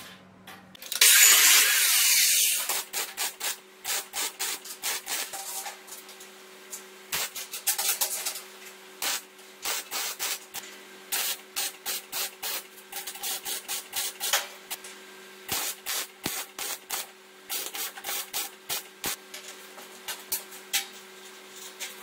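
Electric welder tack-welding a steel rod in place. A longer hiss about a second in is followed by a run of short crackling bursts, one after another, over a faint steady hum.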